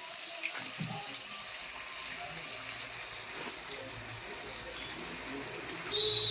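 Onions and capsicum frying in oil in a pan with sauces just added, a steady sizzle. A brief, sharp high squeak near the end is the loudest sound.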